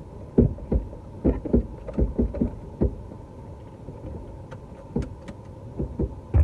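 Car seatbelts being pulled out and buckled: a quick run of soft knocks and thumps, then a few sharp clicks.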